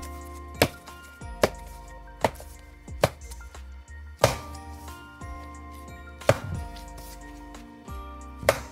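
Soft bread dough slapped down onto a wooden kneading board during slap-and-fold kneading, about seven sharp slaps, close together at first and then further apart. Background music plays underneath.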